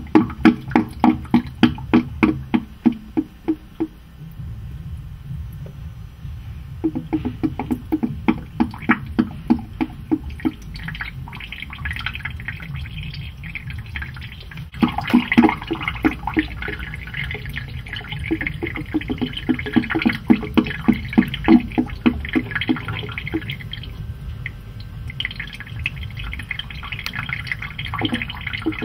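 Water dripping fast into a sink, each drop a short pitched blip, about four a second. The drips fade to a steady wash of running water for a few seconds near the start, then pick up again.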